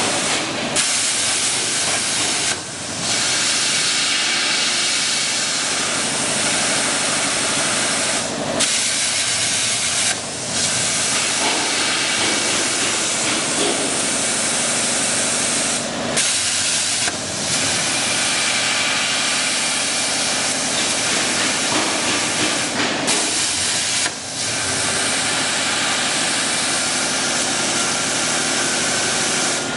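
CNC plasma cutting torch, fed by a Hypertherm power source, hissing steadily as its arc cuts through sheet metal. The hiss dips briefly about eight times.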